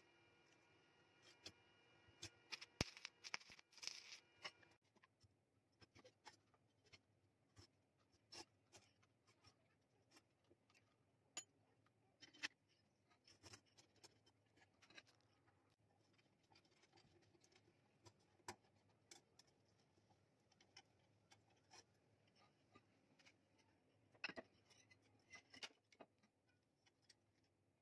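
Faint scattered clicks and taps of metal parts being handled on a small homemade drill press. During the first few seconds there is also a steady hum with crackling.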